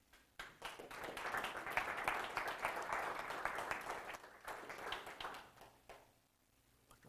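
Audience applauding for about five seconds, then dying away.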